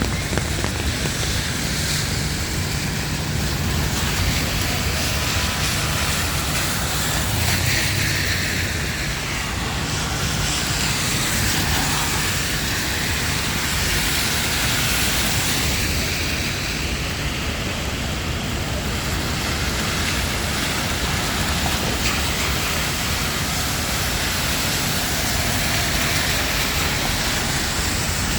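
Rainy city street noise: a steady hiss of traffic on wet pavement over a low rumble, swelling as vehicles pass, about a third of the way in and again near the middle.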